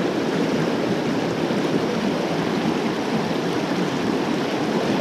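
Fast river water rushing over rapids in a steady, even stream noise.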